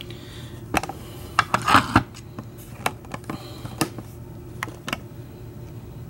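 Light metallic clicks and taps from an American 700 series padlock being handled, its steel shackle and body knocking as the shackle is turned: several separate clicks, with a short rattle a little under two seconds in, over a low steady hum.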